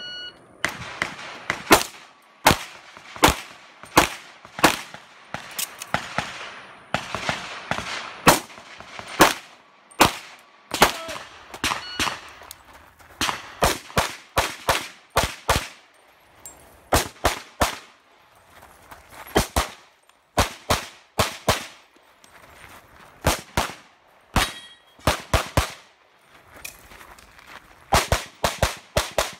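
Pistol shots fired in rapid strings: single shots and quick pairs, with short pauses between strings.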